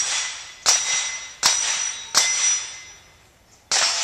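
Rimfire rifle shots striking steel plates, each crack followed by the ringing clang of the plate: four hits about three-quarters of a second apart, then a short pause and one more near the end, its ring fading slowly.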